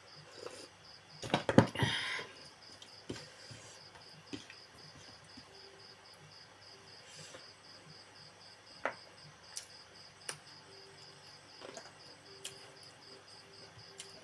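Crickets chirping steadily in a fast, even pulse, with scattered eating clicks and a louder burst of clicks and rustling about a second and a half in.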